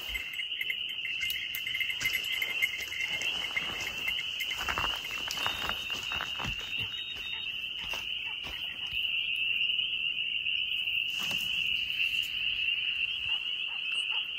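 Chorus of spring peepers: many high peeping calls blending into a steady shrill drone, with a few faint rustles and knocks in the middle.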